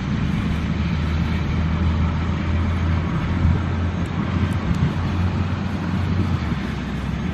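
Steady low mechanical drone of an engine running; its deepest hum drops away about six and a half seconds in.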